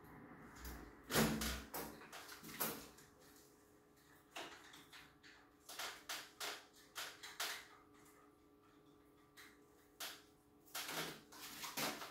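A 28-inch rear wheel being fitted into a mountain bike frame's rear dropouts: irregular metallic clicks, knocks and rattles of the axle, cassette and chain against the frame, loudest about a second in and near the end.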